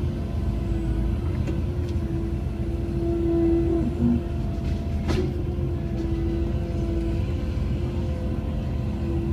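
Cat 312E excavator's diesel engine and hydraulics running steadily, heard from inside the cab, with a constant hum as the boom swings the tree shear. A single sharp click about five seconds in.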